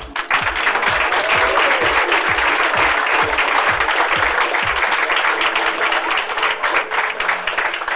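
Audience applauding, a dense burst of clapping that starts suddenly and dies away near the end, over background music.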